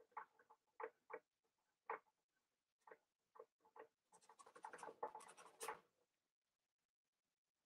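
Faint scratching of a paintbrush dragging blue paint across canvas: short separate strokes about twice a second, then a denser run of quick scrubbing strokes for about two seconds that stops about six seconds in.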